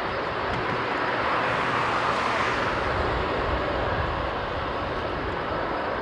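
Boeing 767 twin-jet airliner on final approach, its engines a steady rushing roar that swells slightly about two seconds in, with gusty wind rumbling on the microphone.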